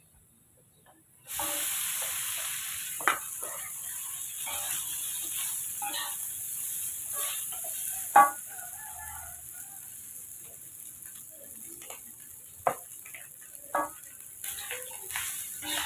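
Food frying in hot oil: sizzling starts suddenly about a second in and eases off later, while it is stirred with a utensil that knocks against the pan several times, most sharply about eight seconds in.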